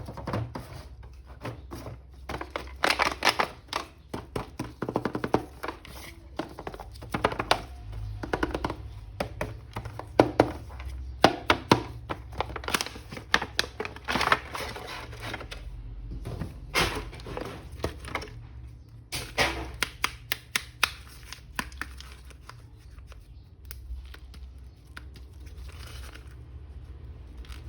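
An action figure's packaging being unwrapped and handled: crinkling, tearing and a run of sharp clicks and knocks, busiest in the first two-thirds and sparser near the end.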